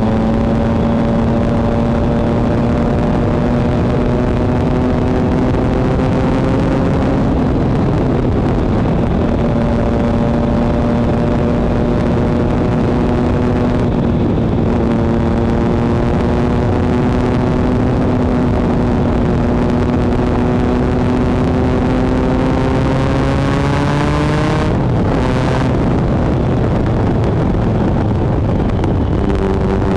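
2013 Triumph Speed Triple 1050's inline-three engine through a Competition Werks GP slip-on exhaust, pulling under way. The engine note holds and climbs, with breaks for gear changes about seven and fifteen seconds in. The revs rise steeply to a peak about twenty-five seconds in, cut off sharply, and the note is lower near the end.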